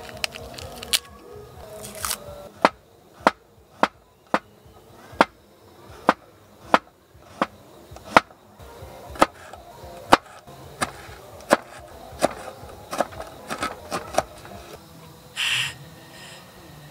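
Kitchen knife slicing garlic on a wooden cutting board: sharp knocks of the blade on the board, about one or two a second, quickening a little near the end. A short hiss follows near the end.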